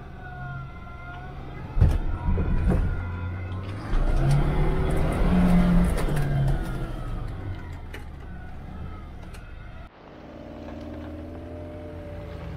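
Off-road 4x4's engine revving and labouring over rough ground, the revs rising and falling, with sharp knocks and bangs from the vehicle about two seconds in and the loudest revving in the middle. After a cut near the end, an engine running at a steadier pitch.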